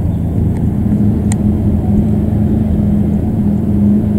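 Eurocopter EC225 Super Puma helicopter approaching in flight: a loud, steady low drone of its main rotor and twin turboshaft engines.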